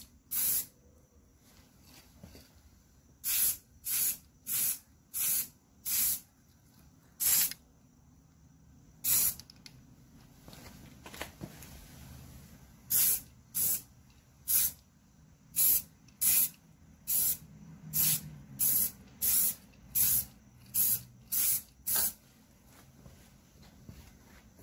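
Aerosol spray-paint can hissing in about two dozen short bursts of a few tenths of a second each, some in quick runs of about two a second with pauses between: light passes laying a first coat of gloss gray paint on hex dumbbells.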